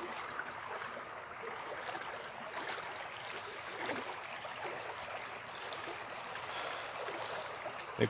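A small forest creek running steadily, with a few faint footsteps in dry leaf litter.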